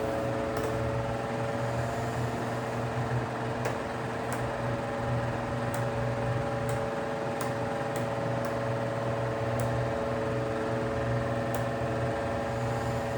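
Electric table fan running with a steady motor hum and a few faint ticks.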